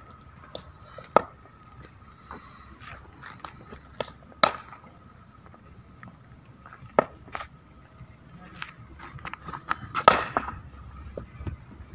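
Cricket net batting practice: sharp knocks of leather ball on willow bat and of balls landing, scattered through. The loudest, about ten seconds in, is a bat stroke that rings on briefly.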